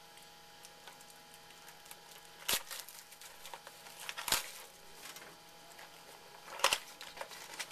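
Sealed trading-card packaging torn and crinkled open by hand, with faint crinkling throughout and three sharper rips a couple of seconds apart.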